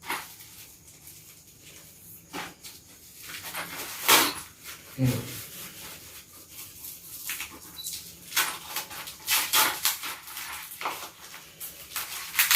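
Crinkling, rustling and tearing of parcel packaging as it is unwrapped by hand, in irregular sharp crackles. A brief low pitched sound comes about five seconds in.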